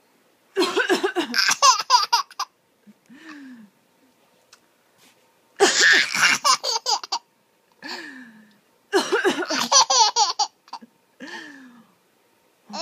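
A woman coughing and a baby laughing at it in short bursts of giggles, the coughs and laughter coming in three rounds.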